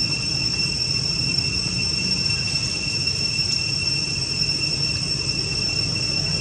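Insects droning outdoors: a steady, unbroken high-pitched tone over a low background rumble.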